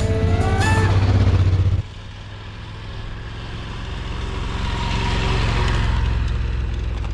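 Motorcycles riding past one after another on a dirt road. A louder, steady engine sound cuts off abruptly about two seconds in. Then engine and tyre noise swells as a bike passes close and fades as it moves away.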